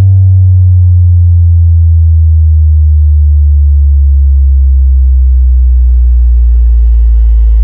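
Electronic bass-check tone: a loud, deep sine bass sliding slowly downward in pitch. Fainter overtones glide down with it and start to rise near the end.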